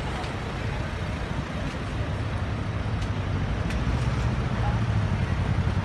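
Lamborghini Urus's twin-turbo V8 idling in stop-start traffic, a low steady rumble that grows louder toward the end, over general street traffic.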